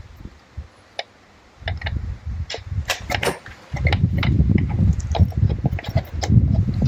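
Hand tools and metal engine parts being handled: irregular metallic clicks and clinks over low knocking and rubbing, louder in the second half.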